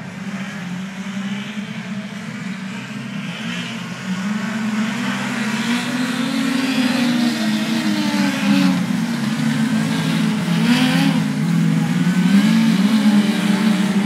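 Compact speedcar engines racing round a dirt speedway oval, their pitch rising and falling as they go through the turns. The sound grows louder from about four seconds in.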